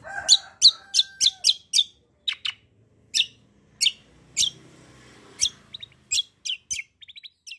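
Kecial kombok (cucak kombok) songbird calling: a string of short, sharp, high chirps, each dropping in pitch, delivered in quick runs with short pauses, ending with a fast little trill.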